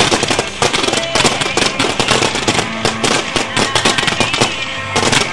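Fireworks display: a fast, continuous barrage of overlapping bangs and crackling as volleys of gold-glitter comets are fired into the sky.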